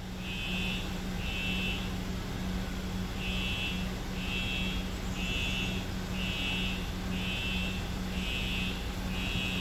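School fire alarm sounding its evacuation signal: a high electronic 'ee' beep repeating about once a second, with one longer pause early on.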